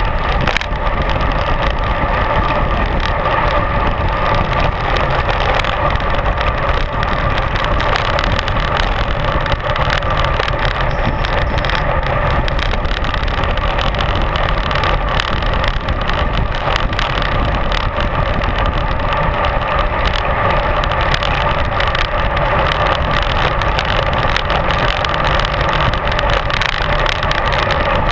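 Steady rush of wind and road noise on a road bike's mounted camera while riding at speed, with a constant fine rattling from the bike and camera mount.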